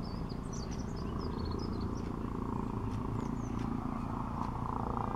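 Helicopter circling overhead: a steady low drone of rotor and engine. Small birds chirp over it in the first second and again around three seconds in.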